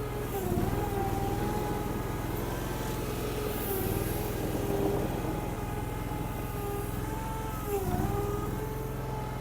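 Derette DRT450 mini skid steer's engine running steadily while the machine carries a 750-pound pallet of concrete. The engine note is pulled down briefly twice, about half a second in and again near the end.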